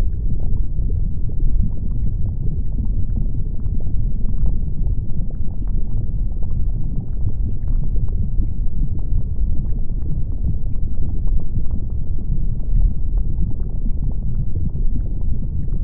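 Volcanic eruption: a steady, deep rumble of erupting lava, with faint scattered small pops and crackles.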